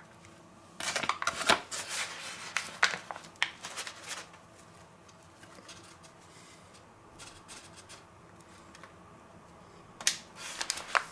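Paper flour bag crinkling and rustling as flour is shaken out of it into a stainless steel bowl. It comes in a run of short rustling bursts about a second in, goes quieter, and starts again near the end.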